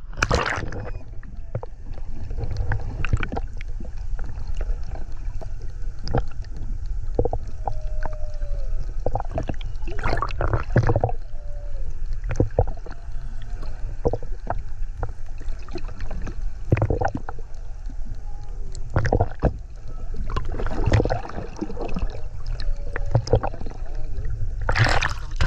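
Underwater sound picked up by a handheld camera: a low rumble of water moving over the camera with many small crackles and bubbly splashes. A few faint drawn-out moans of humpback whale song come through now and then.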